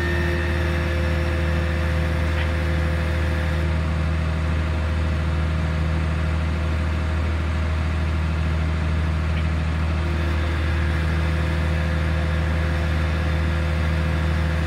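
Diesel engine of a fire brigade turntable ladder truck running steadily, an even low hum with no change in speed.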